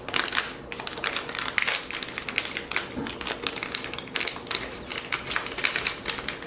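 Plastic snack pouch of dried apricots crinkling and crackling as it is handled, a rapid, irregular run of small clicks.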